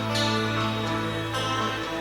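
Background music: soft instrumental with plucked guitar, notes changing about once a second.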